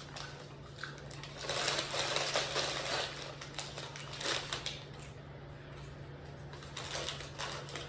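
Close-miked chewing of french fries, coming in irregular noisy spells over a steady low hum.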